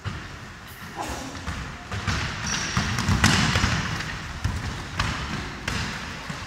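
Basketball being dribbled on a wooden gym floor: a series of separate bouncing thuds, about one a second.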